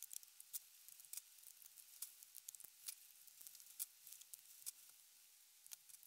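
Faint, irregular light clicks and scrapes of thin steel stator laminations from a microwave-oven fan motor being levered off the copper coil one at a time.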